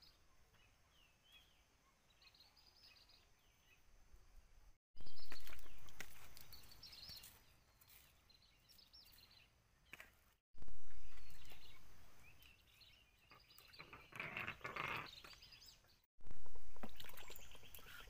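Outdoor ambience with small birds chirping. It is broken by three abrupt cuts, each followed by a sudden loud rush of noise that fades away over a few seconds.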